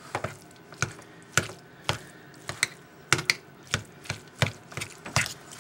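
A fork working shredded canned chicken inside a metal can, its tines clicking and scraping against the can: short, sharp, uneven clicks, about two a second.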